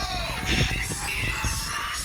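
Electronic music playing through a small speaker, with low wind rumble on the microphone.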